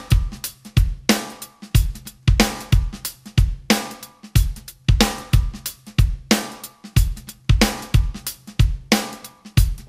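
Drum kit playing a steady beat on its own, with bass drum, snare, hi-hat and cymbal, as the intro of a song.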